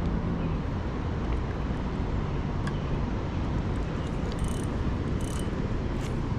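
Steady low rumbling outdoor background noise, with a few faint brief ticks about four and five seconds in.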